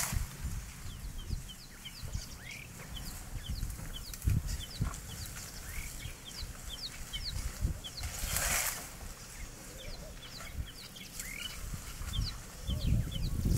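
Small birds chirping, with many short, high, falling notes repeating throughout, over a low rumble with occasional thumps. About eight seconds in there is a brief, loud rustling rush.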